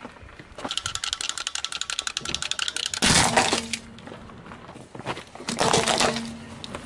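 Objects being crushed under a car tyre on asphalt: rapid crackling for a couple of seconds, then two louder crunching bursts about three seconds apart.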